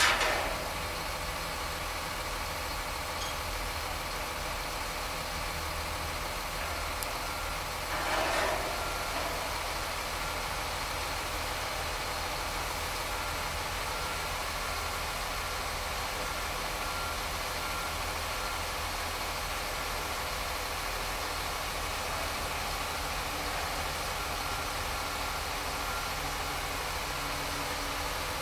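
Heavy construction machinery engine running steadily at idle, with a sharp bang at the very start and a brief louder clatter about eight seconds in. A faint, broken beeping comes and goes behind it.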